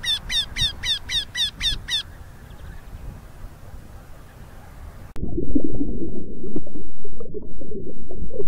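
Eurasian wryneck singing: a run of about nine repeated calls, about four a second, over the first two seconds. After a quieter stretch, a louder low rumbling noise with scattered clicks takes over from about five seconds in.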